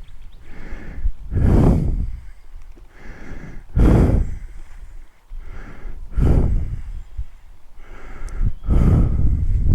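Air buffeting the camera microphone in loud, regular puffs about every two and a half seconds, like close breathing or gusts on the mic.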